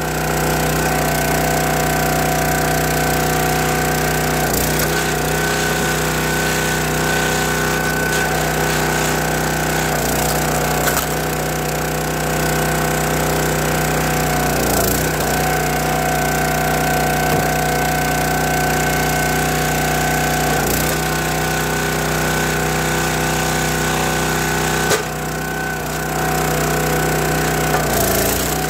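Log splitter engine running steadily, its pitch dipping briefly several times while the hydraulic ram works through red oak and maple logs, with a few sharp cracks of the wood splitting.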